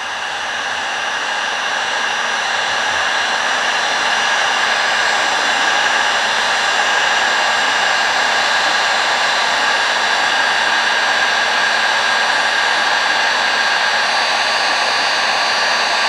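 Electric heat gun running steadily, its fan blowing hot air in an even hiss with a faint steady whine, growing a little louder over the first few seconds. It is shrinking heat-shrink tubing over a crimped battery-cable lug.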